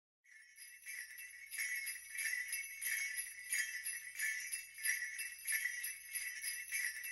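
Sleigh bells jingling in a steady rhythm, about three shakes every two seconds, fading in over the first second or so.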